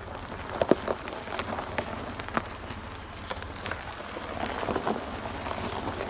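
A 2017 Chevrolet Colorado Z71 pickup rolling slowly over a rough gravel track: tyres crunching on loose stones, with many short clicks and knocks and a cluster of sharper ones just under a second in.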